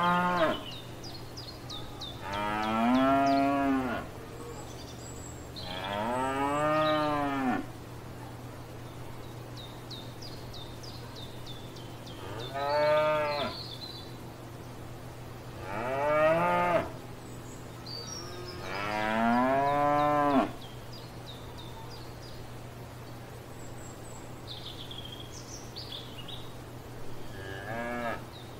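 Cows mooing in a field: a series of long, drawn-out moos every few seconds, each rising then falling in pitch. After a longer pause there is a short, fainter moo near the end.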